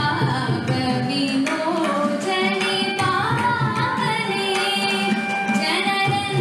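Young woman singing a Carnatic keerthanam into a microphone, holding long notes and sliding between pitches, with hand-drum strokes keeping time.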